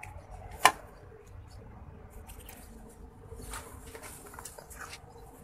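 Wooden spoon stirring a wet cornflour-and-wood-glue dough mixture in a nonstick pan: soft, uneven squelching and scraping, with one sharp knock of the spoon against the pan about half a second in.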